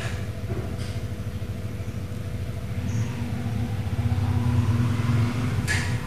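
A steady low motor hum, growing a little louder in the middle and then easing back.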